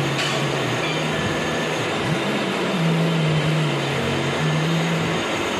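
Milling machine running under power during a helical grooving cut, a steady dense mechanical noise with a low hum that shifts between a few pitches.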